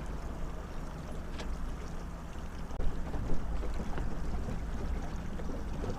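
Boat motor running steadily at slow trolling speed, a low even hum with water and wind noise over it.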